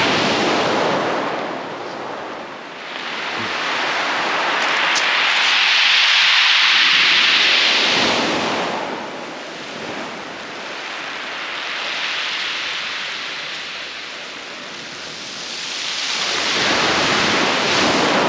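Waves breaking and washing up a shingle beach, the hiss of the surf swelling and fading in three surges several seconds apart.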